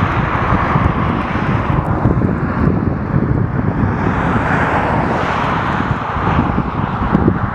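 Wind buffeting the microphone: a loud, gusty low rumble under a steady rushing noise.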